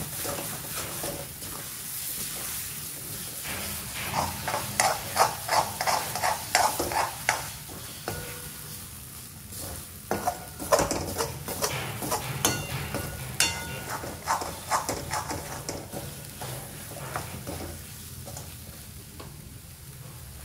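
Onion and tomato masala frying gently in a pan on a low flame with a steady sizzle, while a utensil stirs it, scraping and clinking against the pan in bouts, busiest from about four to eight seconds in and again from ten to fifteen.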